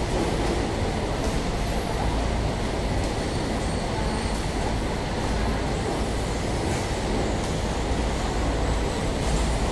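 Jar filling line and its chain conveyor running: a steady mechanical rumble and hum, with a few faint light clicks.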